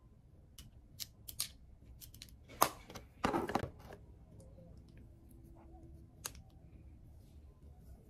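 Makeup-handling sounds: a few light clicks, then a sharp click about two and a half seconds in and a brief scraping rattle as an eyeshadow palette is snapped shut and set down on the desk. One more single click comes near the end.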